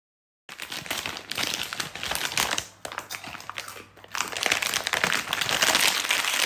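A crinkly plastic snack packet being handled and rummaged in while someone eats from it: a dense run of crackling and rustling that starts about half a second in, with two short pauses around the middle.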